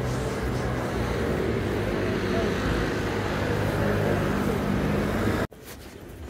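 Vehicle engine hum with traffic noise. It cuts off suddenly about five and a half seconds in, leaving quieter background sound.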